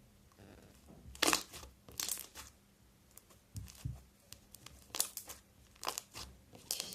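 Slime being squeezed and stretched by hand, crackling and popping in short irregular bursts about once a second.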